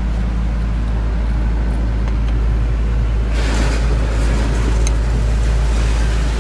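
Steady low engine-like rumble with a hiss over it, unchanging throughout.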